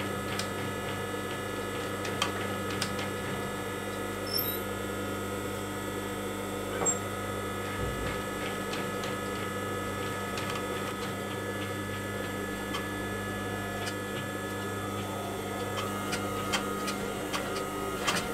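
Post-bed sewing machine stitching leather: a steady motor hum with sparse short needle clicks, a few more of them close together near the end.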